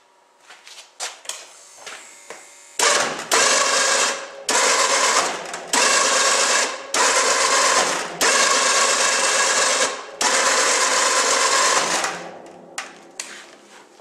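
ATV's electric winch running under load, winding the repaired cable to lift the plow blade. It whines steadily in about six runs with brief stops between.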